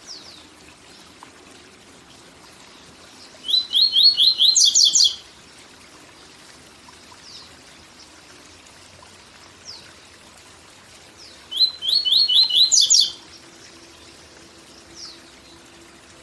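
Papa-capim (double-collared seedeater) singing its 'tui tui zel zel' song twice, each song a quick run of about five clear notes ending in a higher buzzy flourish, with several seconds of pause between. A steady waterfall rushes underneath.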